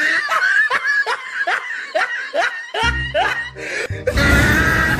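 A laughter sound effect: a run of short snickering laughs, about two or three a second, over music, giving way to a denser, noisier sound about four seconds in.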